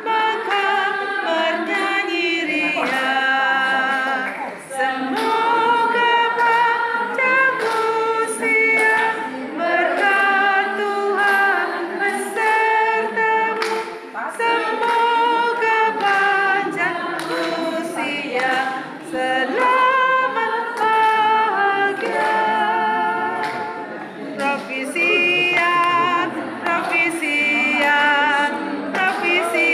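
A choir singing a cappella, in long held notes.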